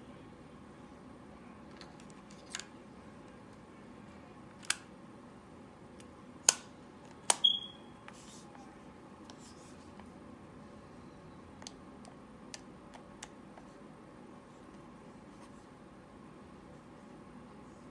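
Sharp plastic clicks from a Sony WM-DD9 cassette player being handled as a battery goes in and its lid is snapped shut. There are about four louder clicks in the first half, the loudest a little past a third of the way in, one followed by a brief ringing squeak, then a few fainter clicks.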